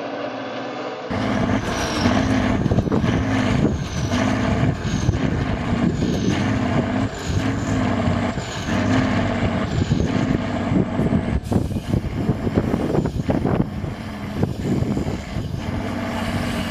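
Trial truck's engine working hard as the truck crawls nose-down through a deep pit. It swells and fades in a regular rhythm, with many sharp knocks.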